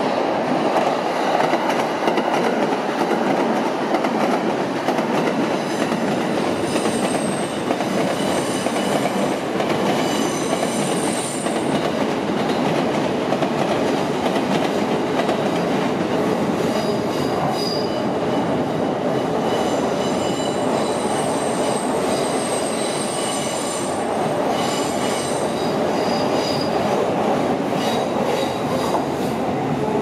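Keikyu 1000-series electric train running across a steel truss railway bridge: a steady rumble of wheels on rail, with high-pitched wheel squeal coming and going through much of the pass.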